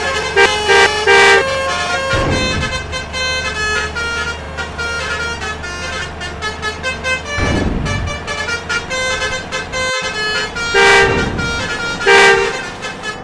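Telolet musical trumpet horns (Basuri type) playing quick multi-note melodies over and over. Louder blasts come about half a second in and again near the end, with traffic passing in between.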